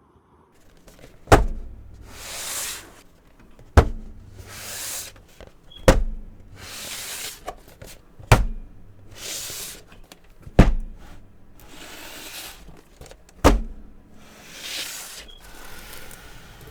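Six sharp thuds two to three seconds apart, each followed by a brief swishing rustle, like boxed Funko Pop figures being set down one at a time on a table and slid into place.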